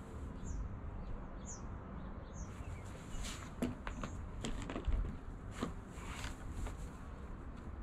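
A few short bird chirps in the first couple of seconds, then rustling, light clicks and creaks from about three seconds in as a person gets up out of a lightweight folding camping chair and sits back down in it.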